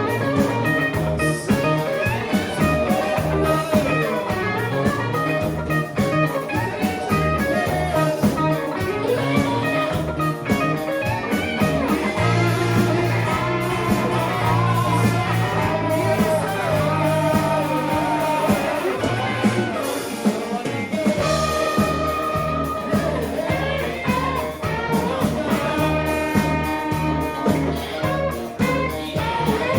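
Band playing guitar-led rock music, with bass and drums keeping a steady beat.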